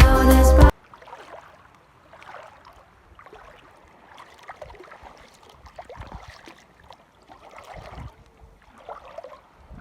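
A music track cuts off abruptly under a second in, leaving faint, irregular lapping and splashing of shallow seawater.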